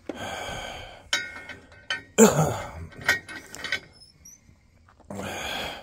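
Metal-on-metal scraping, squeaking and clanking as a stuck pin is worked loose from a steel three-point hitch frame, with one sharp clank about two seconds in.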